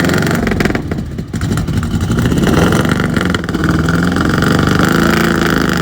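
Lincoln Town Car's V8 engine revving hard: the revs dip briefly about a second in, then climb back and hold high.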